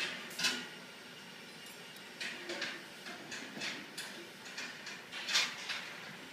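Irregular short scrapes and rustles of hands handling a thick rubber cable and wire connectors beside a combine harvester's battery, the loudest shortly after the start and about five seconds in.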